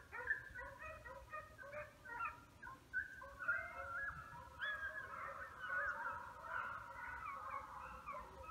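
A pack of deer hounds baying together while running a deer, many drawn-out voices overlapping, the chorus growing fuller about three seconds in.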